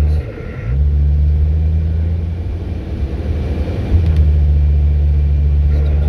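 Mercedes-Benz car's engine running steadily while driving, heard from inside the cabin. Its note dips briefly just after the start, then holds, rising a little about four seconds in.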